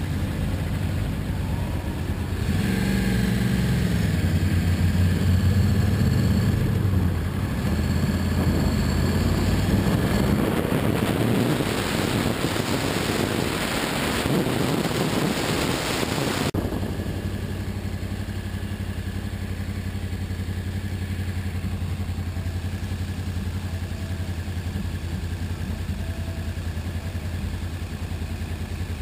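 Sportbike engine heard from on board the motorcycle, revving up and down through gear changes, then wind noise building at speed. About two-thirds of the way in the sound cuts off suddenly to the engine running steadily at low revs.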